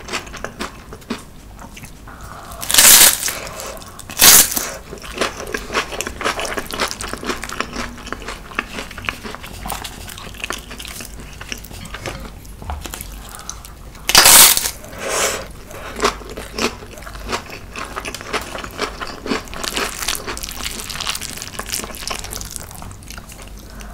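Crisp crunching bites into fried seaweed chips (gim-bugak) wrapped around spicy marinated crab and rice, followed by wet chewing and crackling. There are four loud crunches: two about 3 and 4 seconds in, and two about 14 to 15 seconds in.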